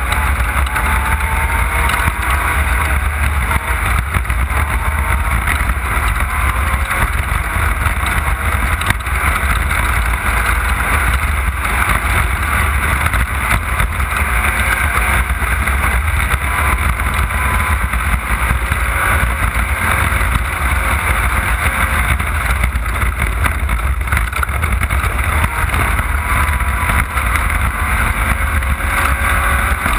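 Off-road race car's engine running hard and continuously, heard on board, its pitch drifting gently up and down over a heavy low rumble.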